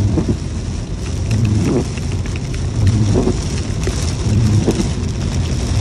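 Heavy rain pelting a car's windshield and body at highway speed, heard from inside the cabin over steady tyre and road noise. A low surge comes and goes about every second and a half.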